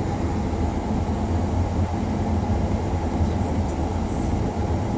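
Steady low rumble heard inside a car's cabin: the car's engine and road noise.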